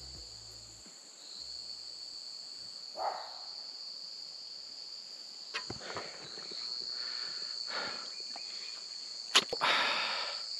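Insects drone steadily at a high pitch in the bush. A few short rushes of heavy breathing come from the rider after the climb, and one sharp click sounds near the end.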